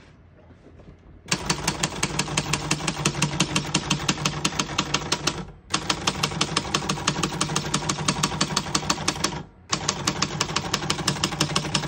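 Keys of a 1971 Royal Mercury manual portable typewriter being typed in a fast, even run of crisp strikes. The typing starts about a second in and comes in three runs, with brief pauses about five and a half and nine and a half seconds in.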